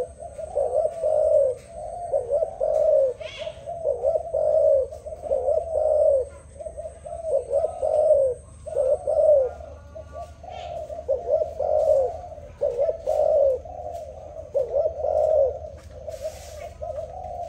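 Spotted dove cooing: low coo phrases repeated one after another with short breaks. A few faint high chirps sound here and there.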